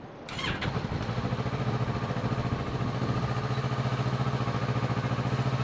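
Kawasaki Z650's parallel-twin engine starting up and settling into a steady idle.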